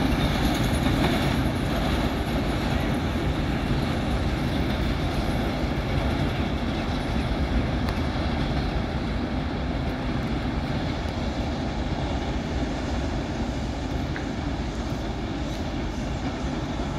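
A long train of empty grain hopper cars rolling along the track: steady wheel-on-rail noise that slowly fades as the last cars move away.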